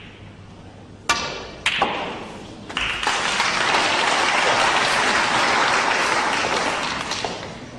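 Snooker cue tip striking the cue ball with a sharp click about a second in, and a second ball click half a second later as the red is hit. Audience applause follows for about four seconds for the potted red, then fades.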